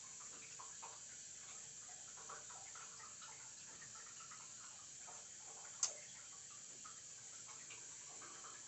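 Faint handling noise: soft scattered ticks and rustles over a steady hiss, with one sharp click about six seconds in.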